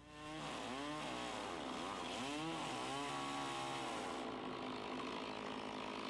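Chainsaw running from about a quarter second in, its engine pitch rising and falling several times, then holding a steadier high pitch while cutting through the end of a log post.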